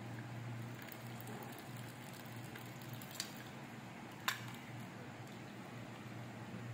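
Hot milk tea being poured through a tea strainer into a steel tumbler, a faint liquid trickle over a low steady hum. Two short clicks, about three and four seconds in, the second sharper, as metal taps metal.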